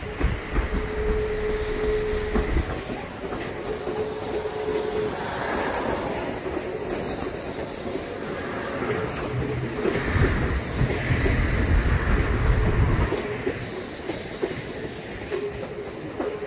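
Odakyu 1000-series electric train pulling out and running away, its wheels clacking over rail joints, with a thin steady wheel squeal that comes and goes. A deeper low rumble swells for about three seconds in the middle.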